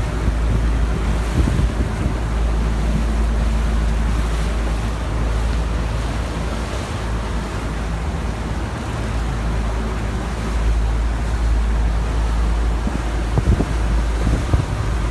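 Boat underway: a steady low engine rumble mixed with rushing wind and water noise.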